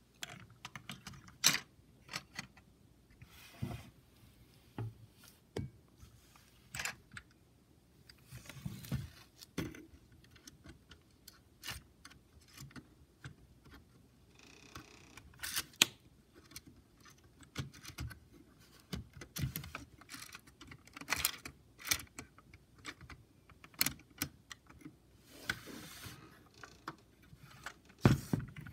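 Hard plastic LEGO parts clicking, knocking and rattling as the model is handled, in irregular sharp clicks with a few louder knocks and short rustles in between.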